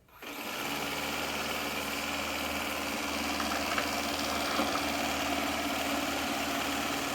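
Shark IQ R100S robot vacuum's suction motor and brush roll starting up and then running steadily during a cleaning run: a whirring hum that builds within about half a second and then holds even.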